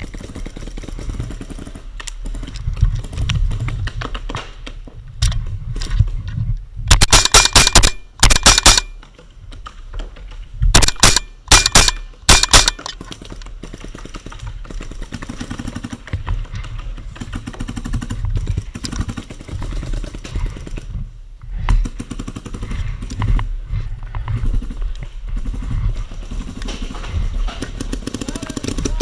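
Valken M17A2 magfed paintball marker firing two quick strings of shots, about a dozen in all: the first about seven seconds in, the second about eleven seconds in.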